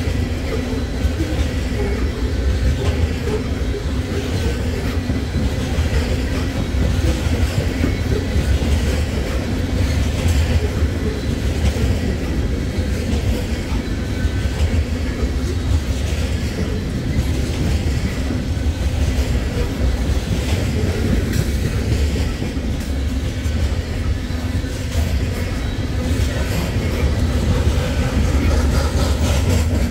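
Loaded coal hopper cars of a freight train rolling past in a steady heavy rumble, the wheels clicking over the rail joints.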